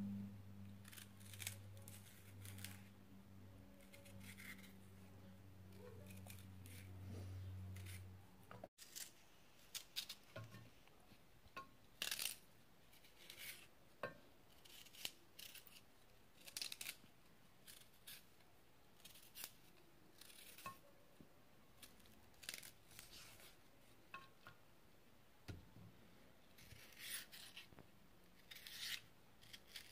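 Small knife scraping and snapping the stringy fibres off cardoon stalks: quiet short rasping strokes every second or two. A low hum underneath stops abruptly about 8 seconds in.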